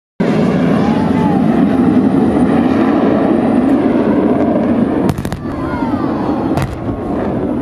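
Military jet formation flying low overhead with a steady, loud engine noise, joined by sharp cracks of ground pyrotechnic charges about five and six and a half seconds in, as an airshow fireball goes off.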